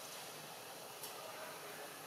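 Faint steady background hiss, with one brief tick about a second in.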